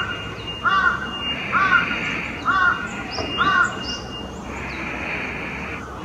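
A bird calling five times in a row, evenly about a second apart, each call a short arched note. Fainter high chirps of small birds run underneath.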